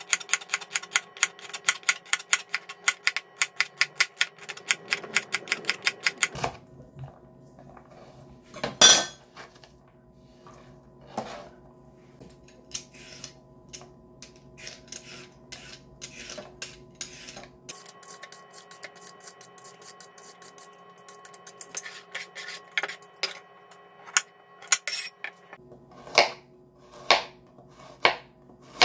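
Chef's knife chopping celery on a plastic cutting board in a fast run of strokes, then a loud knock about nine seconds in. Next come scattered small scrapes and clicks from a vegetable peeler on a carrot, and near the end the knife slicing the carrot in slower strokes, about one a second.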